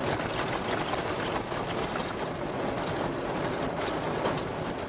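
Vehicle driving over a corrugated sand track, heard from inside the cabin: steady road noise with continual rattling and knocking as it jolts over the corrugations.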